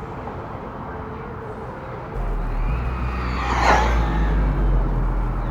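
A large radio-controlled car passes close by, its electric drive and tyres swelling to a peak a little past the middle and fading away. A low rumble sets in about two seconds in.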